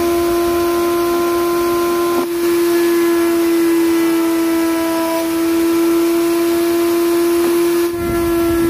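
Table-mounted wood router running at a steady high-pitched whine while a wooden strip is fed past the bit along the fence. The whine dips briefly twice.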